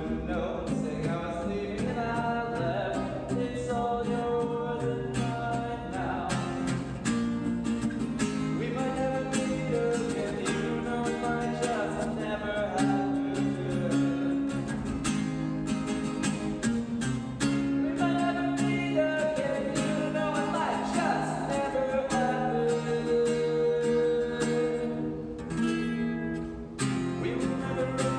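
Acoustic guitar strummed in a steady rhythm, accompanying a singing voice.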